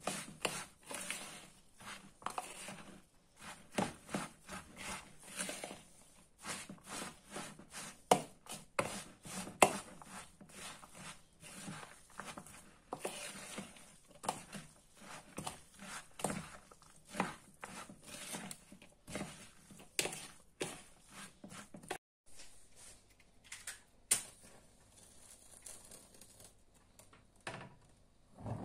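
Finely chopped onion, egg and semolina being mixed by hand in a plastic bowl: wet squelching and crunching in quick, irregular strokes that stop about three quarters of the way through, followed by a few separate clicks.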